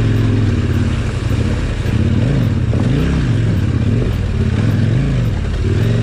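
KTM 1190 Adventure R's V-twin engine pulling at low revs through a river crossing, the throttle opened and eased several times so the engine note rises and falls.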